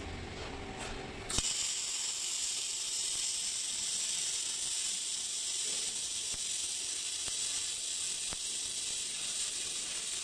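MIG270D semi-automatic MIG welder's arc striking with a click about a second and a half in, then running as a steady, even hiss while a bead is laid.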